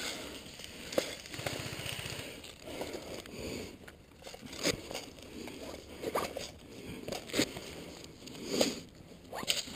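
Footsteps of a person walking on a dirt trail strewn with dry leaves, with clothing and gear rustling between the steps.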